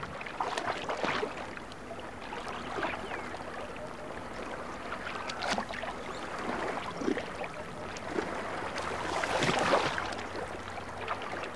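Water sloshing and splashing as a group of yacare caimans jostles and rubs against one another while mating in shallow water, in irregular surges with the largest swell of splashing about nine seconds in.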